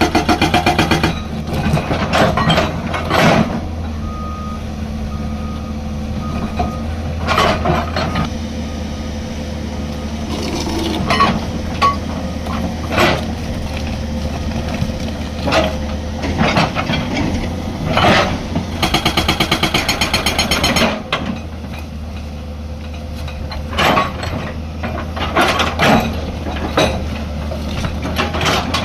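A Hyundai 215 excavator's diesel engine running steadily while its hydraulic rock breaker hammers hard stone, firing in rapid runs of blows at the start and again about two-thirds of the way through, with scattered single knocks in between. A short run of beeping comes a few seconds in.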